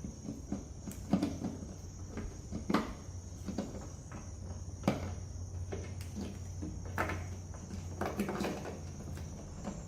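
Scattered sharp clicks and knocks of hard plastic parts being handled: LED bulb sockets being fitted back into a truck taillight housing. Under them runs a steady high drone with a low hum.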